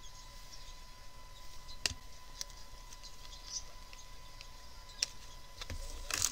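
Trading cards being handled: a few faint clicks and taps as cards are shuffled, then rustling near the end as a hand reaches into the cardboard hobby box for a foil pack.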